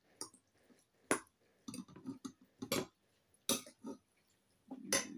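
Metal fork and spoon clinking against a ceramic bowl of noodles while eating: about four sharp clinks, roughly a second apart, with fainter scrapes and taps between them.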